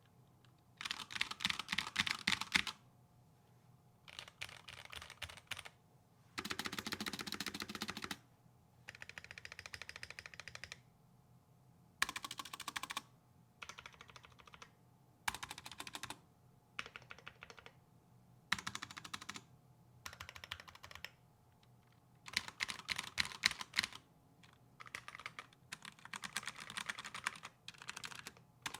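Fast typing on a custom Glorious GMMK Pro mechanical keyboard with Durock L7 linear switches on a polycarbonate plate. The keystrokes come in quick runs of about one to two seconds, separated by short pauses.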